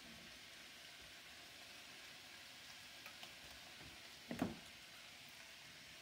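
Potatoes, carrots and beets sizzling faintly and steadily in a wok, with one short knock about four and a half seconds in.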